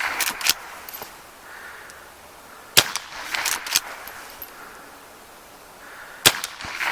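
Henry lever-action .22 rifle firing .22 Long rounds, two sharp shots about three and a half seconds apart. Each shot is followed by a few quick metallic clicks, the lever being worked to chamber the next round.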